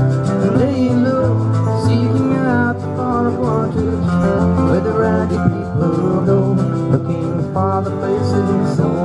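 A live acoustic rock band playing: strummed acoustic guitar and electric guitar over a drum kit, with a man singing.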